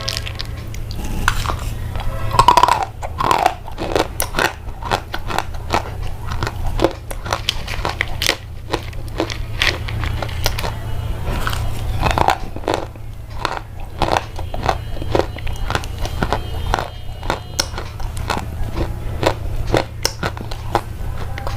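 Irregular close crunching and crackling clicks over a steady low hum.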